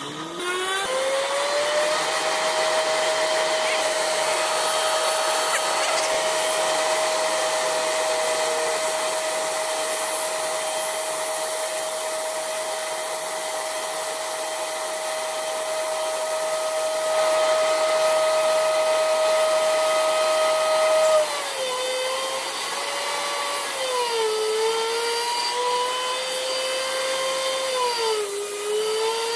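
Electric motor of a variable-frequency screw air compressor starting up, its whine rising in pitch over the first two seconds to full speed, then holding steady. About twenty seconds in, the pitch drops and wavers lower twice as the inverter slows the motor once air pressure has built up under load.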